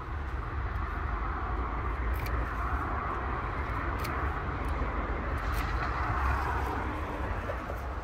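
Steady outdoor background noise, a low rumble with a hiss over it, with a few faint sharp clicks of secateurs snipping through potato stems.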